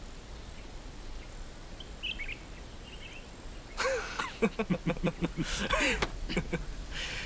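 Quiet outdoor ambience with a faint bird chirp about two seconds in, then male laughter in the second half: a quick run of short, repeated 'ha' sounds.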